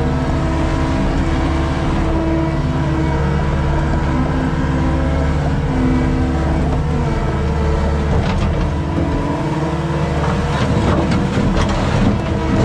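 Skid steer engine running steadily, with a few short clanks in the last few seconds.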